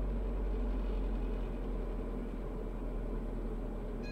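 Steady cabin noise of a Diamond DA40 landing: engine and propeller drone at low power, with airflow hiss over the canopy and a strong low hum.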